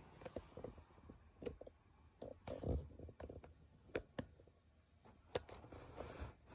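Scattered light clicks and taps from cats playing around plastic ball-track toys, with a louder soft thump a little before three seconds in and a brief rustle near the end.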